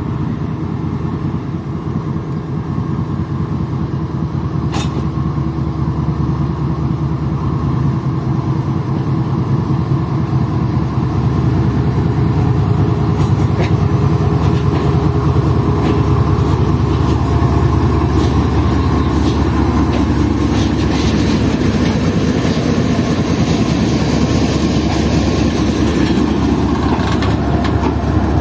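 GE diesel-electric locomotive pulling a passenger train slowly past, its engine running with a steady low drone that grows louder as it comes near. From about halfway, the wheels click over the rail joints as the coaches roll by.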